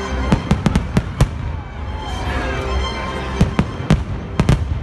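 Aerial firework shells bursting in a volley of sharp bangs, about a dozen in all. They come in two quick clusters, one in the first second and a half and another near the end, over background music.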